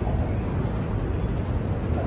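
Freight train of multilevel autorack cars rolling past, its steel wheels running on the rails in a steady low rolling noise.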